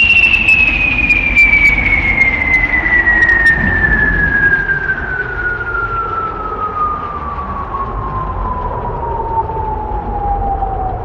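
Synthesized electronic sound imitating a thunderstorm: a single pure tone gliding slowly and steadily down in pitch, siren-like, over a low rumbling noise, with a few faint crackles in the first few seconds.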